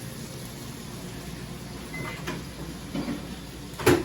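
Kitchen clatter of utensils and dishware: a few light clicks and taps, then one sharp knock near the end, over a steady low hum of kitchen equipment.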